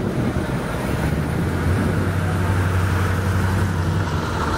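Car engine running at low speed: a steady low rumble that sets in about a second in and eases off near the end, over open-air background noise.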